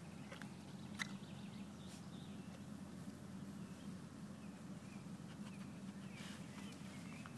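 Quiet outdoor background: a steady low hum with a few light clicks, the sharpest about a second in, and faint, short high chirps now and then.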